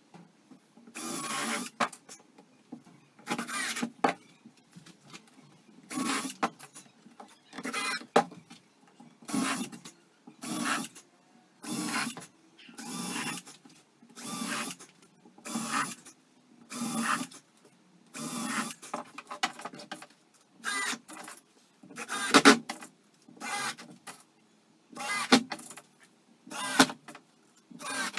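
Cordless drill/driver running screws into pine pallet wood in short trigger bursts, roughly one a second, each under a second long.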